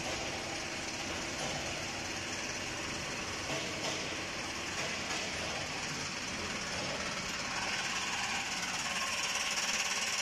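Chocolate depositing production line running: a steady mechanical hum and hiss. It grows louder near the end with a fast buzzing rattle from the chain conveyor and vibrating motor.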